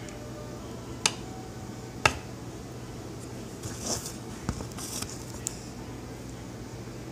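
Knife and frosting work on cupcakes: two sharp clicks of the knife against the dish, then softer scraping and squishing of frosting with a low knock about four seconds in, over a steady low hum.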